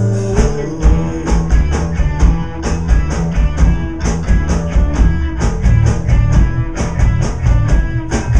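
Live rock band playing electric guitar, bass and drum kit, with a steady run of drum and cymbal hits about three a second over a heavy bass line.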